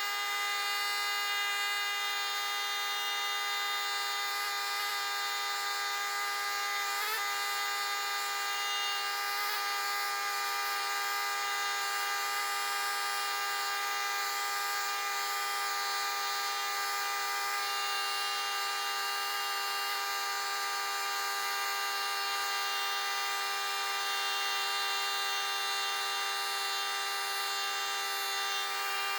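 Chicago Pneumatic CP9361 pneumatic air scribe running steadily, a continuous high buzz from its stylus tip hammering into the rock and flaking off muscovite mica.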